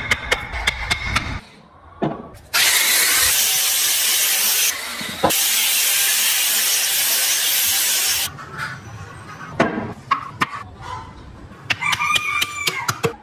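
Angle grinder with a sanding pad running against the wooden body, a loud steady hiss lasting about six seconds. Before and after it come quick runs of sharp taps on the wood.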